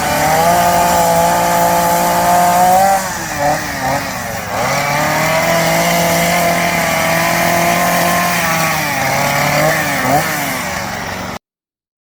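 Chainsaw running at high revs, its pitch dipping and climbing back a few times (around 3, 4.5 and 9–10 seconds in), as when carving wood; it cuts off abruptly near the end.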